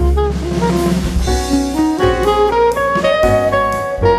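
Background jazz music with a drum kit and saxophone, a cymbal wash about a second in.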